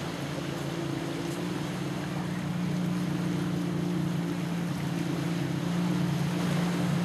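A steady low engine drone over wind and water noise, growing a little louder in the second half.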